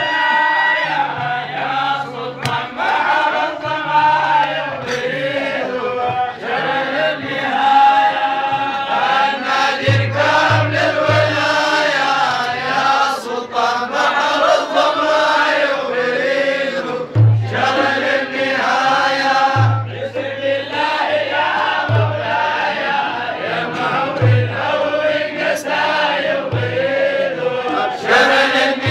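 A group of men chanting together in a repeated melodic line, with low thuds recurring every couple of seconds from about ten seconds in.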